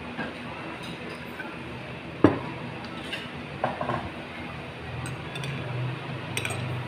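Tableware clatter at a dining table: one sharp knock about two seconds in, a second short clatter over a second later, and a few light clinks.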